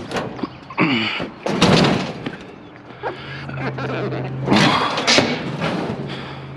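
Heavy thuds and scraping as a glass-top electric range is shoved onto a steel utility trailer, with two loud knocks, one a couple of seconds in and another near five seconds. A low steady hum runs under the second half.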